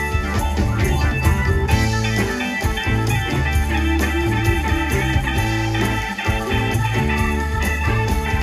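Live rock band playing: electric guitar over bass, drums and keyboards, with a steady beat.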